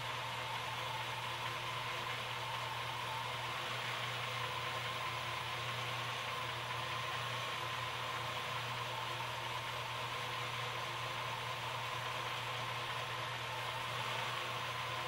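Car engine idling steadily, with a steady high whine over it, while an engine analyzer runs a power balance test that cuts out the cylinders one at a time. The owner judges it a very healthy engine.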